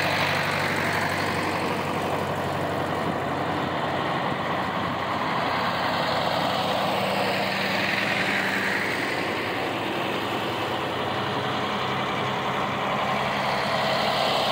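Vintage farm tractors' diesel engines running steadily as they drive along a road; a green Hanomag tractor approaches and comes close near the end.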